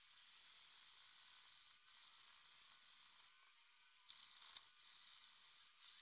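Strip of sandpaper drawn back and forth across the bare aluminium-alloy backstrap of a Beretta 92FS frame, a faint, steady hissing rasp. It comes in several long strokes with short breaks between them. The filed hump is being smoothed to a Vertec-style profile.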